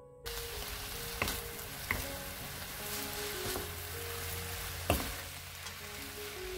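Fish cake strips and carrots sizzling in a frying pan over medium-low heat as they are stir-fried with wooden spatulas. The sizzle starts suddenly just after the beginning, and the spatulas knock sharply against the pan three times, loudest near the end.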